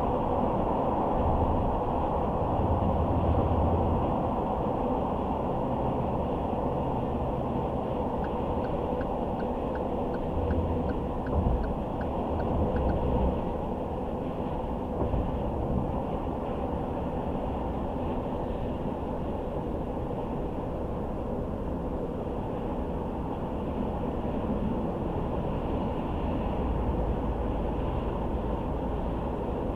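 Car driving on the open road: steady tyre and engine noise with a low rumble. About a third of the way in, light regular ticks come about twice a second for some five seconds.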